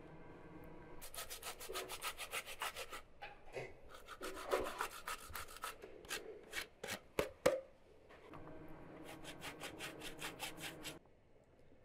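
Food grated by hand on a stainless-steel box grater: runs of quick rasping strokes, about six a second, with a few slower, harder strokes in the middle. The grating stops shortly before the end.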